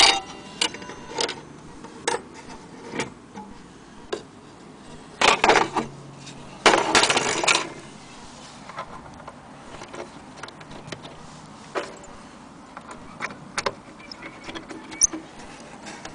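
Antique wall-clock parts (pendulum, winding key, metal rods) being handled on a wooden surface: irregular knocks and clicks, with two longer rustling, scraping noises about five and seven seconds in. The knock at the very start rings briefly.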